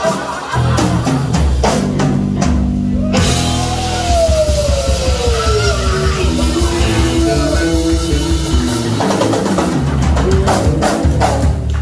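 Live rock band playing: female lead vocal over electric guitar, electric bass and drum kit. A long held note slides down in pitch through the middle, with drum strikes around it.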